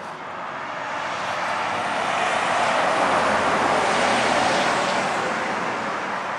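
Rushing noise of a passing vehicle that swells over about three seconds and then slowly fades.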